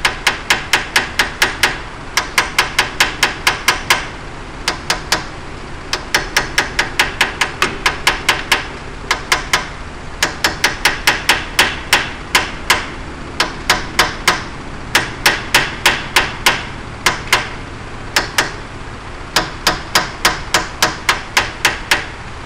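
Hammer tapping on an old wheel bearing used as a driver to seat a new wheel bearing into a Ford 8.8 rear axle housing: light, ringing metal-on-metal taps, about five a second, in runs of a couple of seconds with short pauses. The taps go evenly around the bearing's edge until it will not move any further, the sign that it is fully seated.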